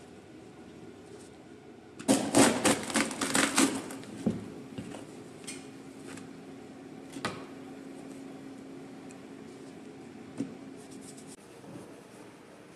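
Crisp clicking and rustling of toasted rye bread halves being handled and laid into a cloth-lined wicker basket: a dense burst of about two seconds, then a few single clicks. A faint steady hum runs under the middle of it.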